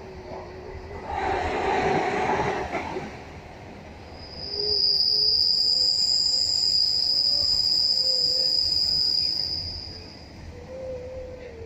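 Passenger train running, with a steady low rumble from the wheels on the track and a rush of noise about a second in. About four and a half seconds in, a steady high-pitched wheel squeal starts and holds for about five seconds before fading.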